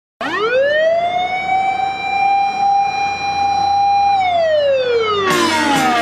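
Fire engine siren wailing: it rises quickly, holds one high steady tone for about four seconds, then falls away. Music with a steady beat comes in over the falling tail near the end.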